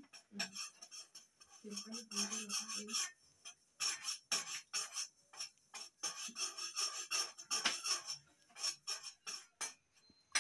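Rapid, irregular scraping and rubbing strokes of a kitchen utensil working in a pot or on a hard surface.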